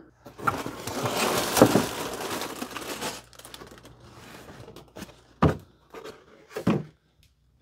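Cardboard Lego set box being opened and unpacked: a loud stretch of rustling and tearing for about three seconds, quieter rustling of cardboard and plastic bags after, then three sharp knocks as the contents are handled.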